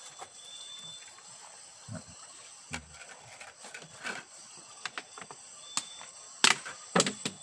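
Night insects keep up a steady high-pitched chirring. Over it come scattered light clicks and two sharp clatters near the end, from plates and utensils being handled while people eat.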